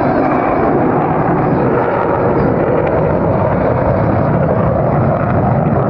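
Jet noise from an F-22 Raptor's twin turbofan engines: a loud, steady roar with no breaks, deep and rumbling.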